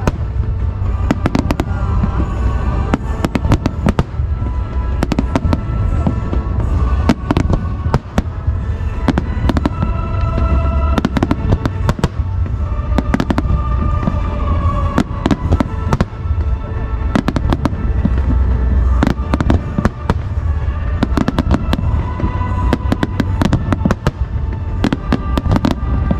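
Aerial fireworks shells bursting in a dense finale barrage, many sharp bangs in quick succession over a deep rumble, with music playing alongside.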